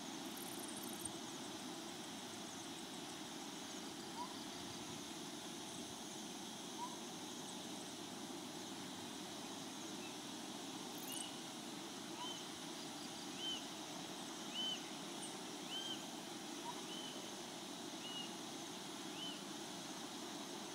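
Steady outdoor evening ambience of even background noise. In the second half a bird gives a short, clear call about once a second, eight or nine times.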